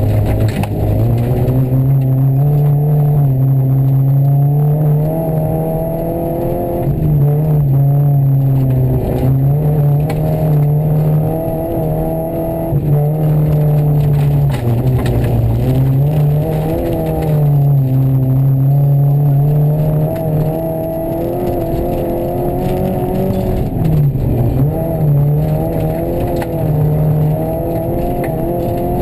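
Rally car engine heard from inside the cabin at a flat-out stage pace, held at high revs with its pitch dropping briefly and climbing back every few seconds.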